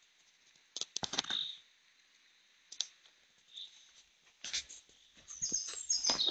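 Footsteps crunching on a forest track, a scatter of clicks and crackles that thickens near the end, with short high bird chirps.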